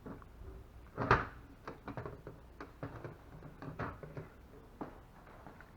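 Hard plastic parts being handled and knocked together: one sharp knock about a second in, then a string of light clicks and taps.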